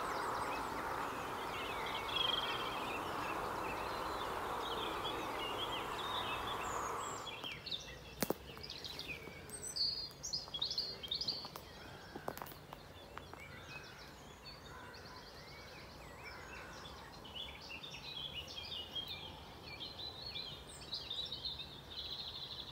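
Small songbirds chirping and singing in woodland, with many short calls throughout the second part and a faint low rumble of road traffic beneath. For the first several seconds a louder steady rushing noise covers them, then stops abruptly.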